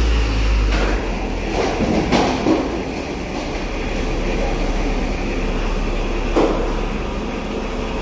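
Mitsubishi diesel engine of a new 5-ton forklift running steadily as the forklift drives through a steel shipping container, with a few metallic clanks along the way.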